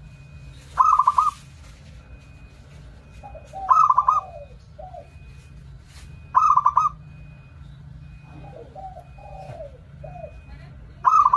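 Zebra dove (perkutut) cooing: four loud phrases of quick stuttered coo notes, roughly every three seconds. Softer, lower, trailing coos come between them. This is the perkutut call used as a lure to draw wild zebra doves.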